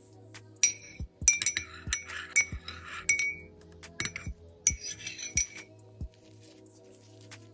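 Metal teaspoon stirring tea in a ceramic mug, clinking against the sides in a string of sharp, ringing clinks over the first five seconds or so. Soft background music plays underneath.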